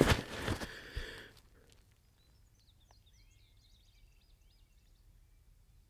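A brief rustle right at the start, then near silence, with a faint bird giving a quick run of high chirps in the middle.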